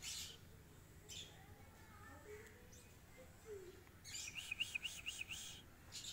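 A bird's rapid, high chirping, about six notes a second, in a brief run at the start and a longer run from about four seconds in.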